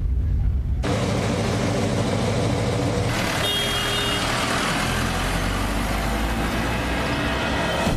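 Road traffic noise, cars and trucks running, starting abruptly about a second in and played through loudspeakers, with a brief high tone like a horn about three and a half seconds in.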